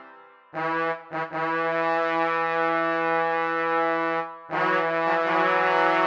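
Software instrument in GarageBand, played live from a MIDI keyboard and heard from the computer: a short note about half a second in, a note held for about three seconds, then another long held note.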